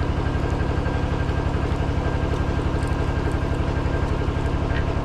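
An engine running steadily, with a fast, even low pulse.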